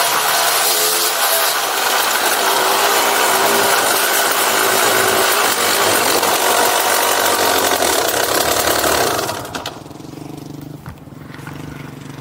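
KTM 250 dirt bike engine running under way, its pitch wavering with the throttle, under heavy wind rush on the helmet microphone. About nine seconds in, the wind noise drops away and the engine settles to a steady low idle as the bike slows.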